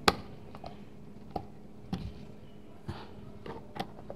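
A string of irregular sharp clicks and light knocks from hands and a small part being worked at a VW Beetle's front wheel hub, the sharpest right at the start, over a steady low hum.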